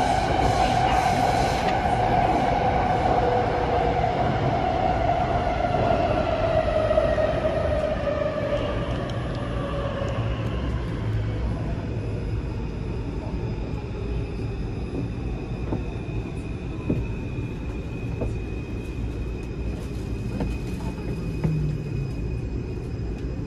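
Taipei Metro C341 train heard from inside the car, its traction motors whining as it brakes into a station. The whine falls steadily in pitch over about the first ten seconds, then fades, leaving a steady low running rumble.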